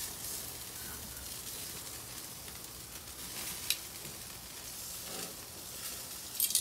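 Sausages and shrimp sizzling on a hot gas grill: a steady frying hiss, with a light click about three and a half seconds in.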